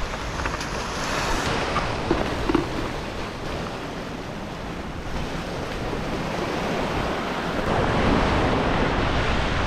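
Ocean surf breaking and washing over the rocks below, a steady wash that swells louder about a second in and again near the end.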